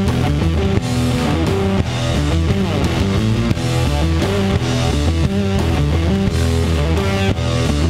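Rock song playing through an instrumental stretch without vocals, with guitar.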